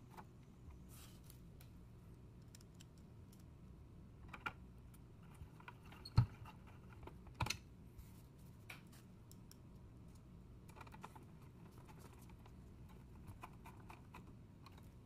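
Light scattered clicks and taps of a hand screwdriver and screws on the metal chassis of a Kia Stinger UVO head unit as it is screwed back together, with a sharper knock about six seconds in.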